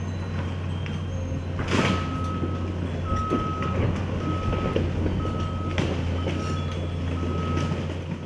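Diesel engine of heavy demolition equipment running steadily, with its backup alarm beeping about once a second from about two seconds in as the machine reverses. There is a single knock just before the beeping starts.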